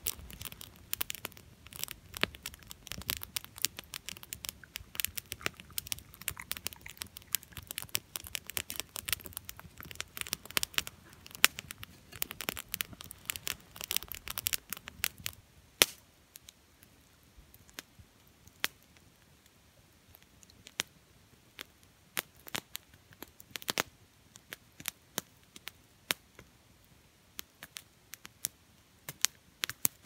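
Small wood campfire crackling with sharp pops. For the first half or so the pops come thick over a close rustling and handling noise; after that they stand alone and sparse, a few each second.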